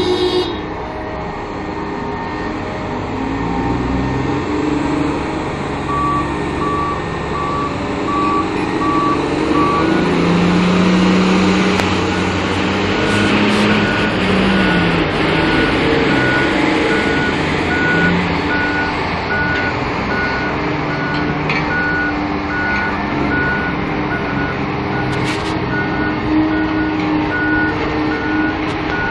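Large mining diesel engines from a haul truck and a hydraulic excavator running under load, with a reversal alarm beeping about one and a half times a second as a 100-ton dump truck backs into loading position. A lower-pitched beeper sounds briefly first, then a higher-pitched one takes over and keeps going, and the engine note rises for a few seconds.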